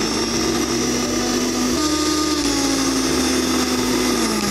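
Electric mixer grinder running at speed, blending milk with ice cubes in its steel jar: a loud whooshing churn over a steady motor whine. The whine's pitch steps up about two seconds in and dips near the end.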